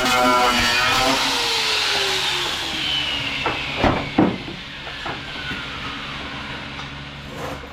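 A handheld power tool running, then released and spinning down in a slowly falling whine over several seconds, with two sharp knocks about four seconds in.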